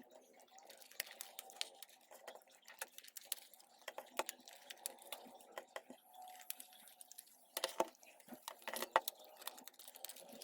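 Irregular light clicks and taps of small hard parts being handled, with a louder cluster of clicks about three-quarters of the way through.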